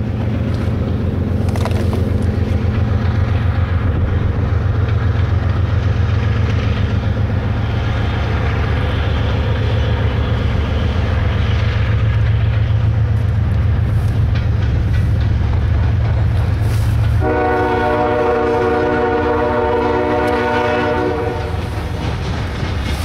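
Diesel freight locomotives passing at the head of a freight train, their engines running with a steady low rumble. About seventeen seconds in, a locomotive air horn sounds one long blast of about four seconds.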